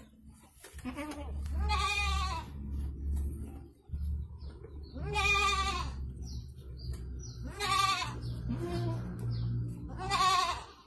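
Goat bleating four times, each a wavering call up to about a second long, a few seconds apart, over a low steady rumble.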